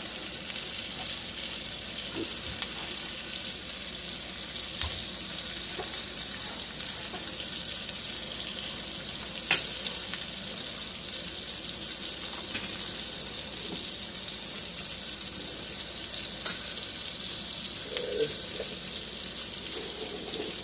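T-bone steak frying in butter in a pan, a steady high-pitched sizzle. A sharp click sounds about halfway through and another later on.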